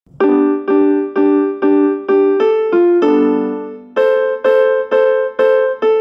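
Phone ringtone tune played on an electric-piano sound: short repeated chords about two a second, quickening briefly, then one longer held chord about three seconds in before the pattern starts again.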